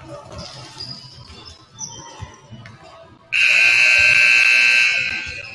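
Loud electronic buzzer sounding once, a single steady blast of about two seconds starting a little over three seconds in.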